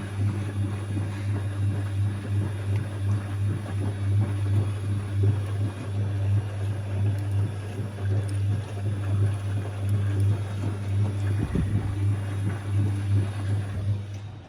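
Siemens Siwamat XB1260 washing machine running its intermediate spin with a steady, loud hum, which stops abruptly at the very end: the spin finishing before the first rinse.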